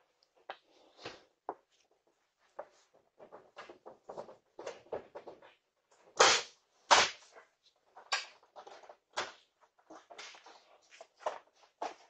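A run of irregular sharp knocks, clatters and bangs, the two loudest about six and seven seconds in, picked up by a doorbell camera's microphone.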